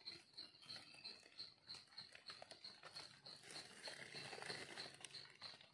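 Faint rustling and small clicks of dry leaves and forest soil being handled, with a soft high chirp repeating about three times a second behind it.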